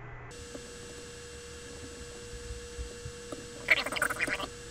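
A steady electrical hum with a faint steady tone. Near the end comes a short cluster of sharp clicks and rattles from handling the halves of an airsoft AEG gearbox shell while lining up its internal parts for reassembly.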